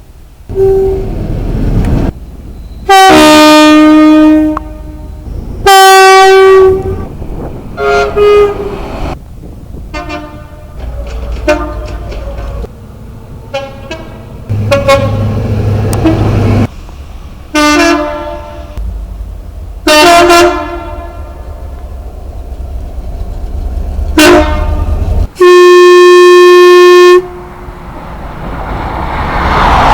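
A string of British train horn blasts cut together one after another: two-tone high-low blasts, short single toots and, near the end, one long steady blast, with the rumble of trains between them.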